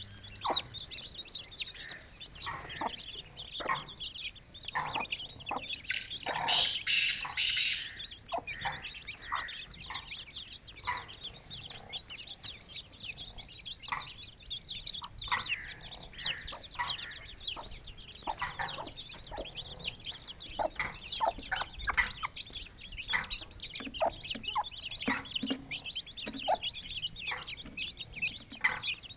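Aseel chicks peeping, many short high chirps one after another, with the hen's short clucks scattered among them. About six seconds in there is a loud rustling burst that lasts a second or two.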